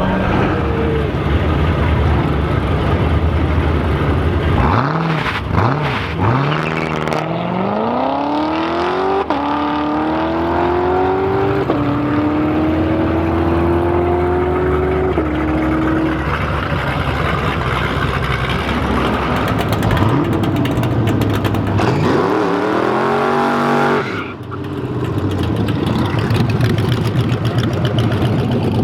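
Drag racing car engines accelerating hard through the gears, the pitch climbing and dropping back at each shift, three times between about 5 and 16 seconds in. Another climb cuts off suddenly about 24 seconds in.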